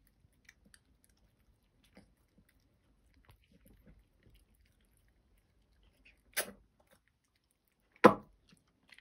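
Small dog eating chicken from a bowl: faint, scattered chewing and crunching. Two short, sharp, louder noises come about six and eight seconds in, the second the louder.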